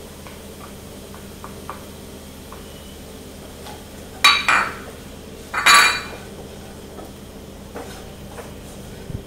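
Two sharp, ringing clinks of kitchenware, about a second and a half apart, with a few faint light taps before them, as spice powders are tipped from a small bowl into a pan of frying onions.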